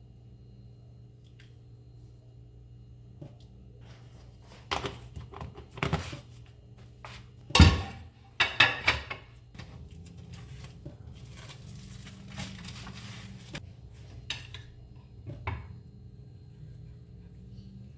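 Dishes and kitchenware being handled and set down: scattered clinks and knocks, one loud sharp clack about eight seconds in followed by a short clatter, then a few seconds of hissing noise, over a low steady hum.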